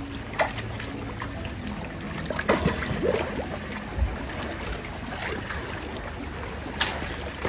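Water sloshing and lapping over a steady background noise, with a few short splashes, about five in all.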